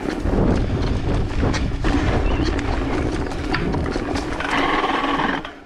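Mountain bike riding fast down a dirt singletrack. Wind buffets the microphone with a heavy rumble, and the bike gives a constant run of rattles and clicks over the bumpy ground. Near the end a higher-pitched sound rises briefly above the noise.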